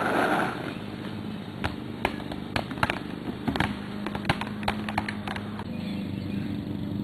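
A run of sharp, irregular clicks and knocks, with a low steady hum coming in about halfway through.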